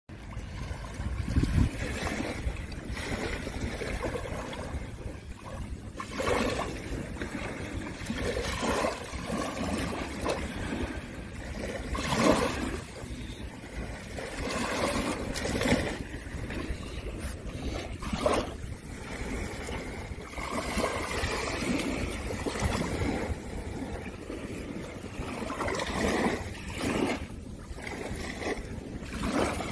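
Small waves washing onto a sandy beach in irregular surges every second or two, with wind rumbling on the microphone.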